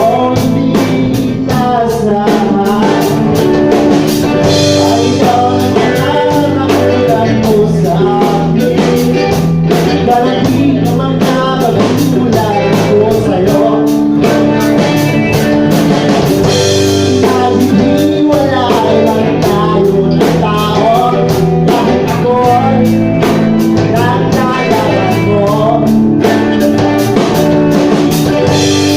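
Live rock band playing a song: a singer's voice over electric guitar, bass and a drum kit keeping a steady beat.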